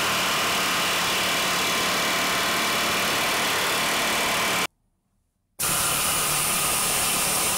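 Pneumatic air hammer running flat out through an injector removal adapter, shocking a seized diesel injector held in a vice to try to knock it loose. It goes in two bursts that start and stop abruptly: about five seconds, a pause of about a second, then about two seconds more.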